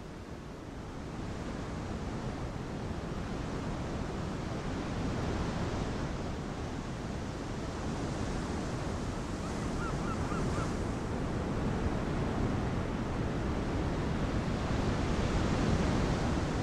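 Steady rush of waves breaking, fading in at the start, with a few faint short chirps about ten seconds in.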